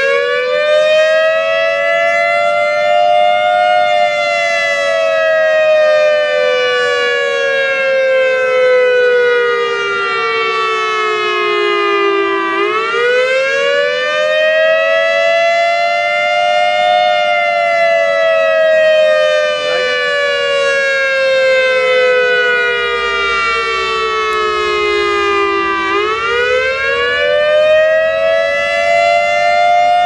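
Tsunami warning siren wailing loudly: a two-tone note that climbs over a few seconds and then sinks slowly, rising and falling about every 13 seconds, twice over and starting a third rise near the end.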